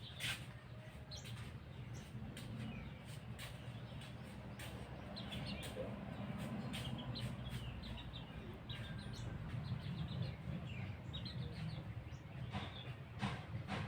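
Javan myna (jalak kebo) giving many short chirps and whistles in quick succession, thickest in the middle, over a steady low rumble.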